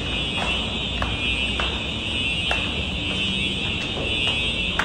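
A building fire alarm sounding continuously as a steady, high, unbroken ringing that signals an evacuation. A few scattered footsteps tap on the concrete stairs.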